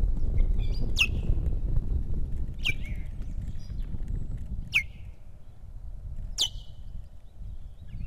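Osprey calling on the nest: four sharp, piercing whistles that each slide quickly down in pitch, spaced about a second and a half to two seconds apart, the alarm calls of an osprey confronting an intruder. Under them is a low rumble that fades about halfway through.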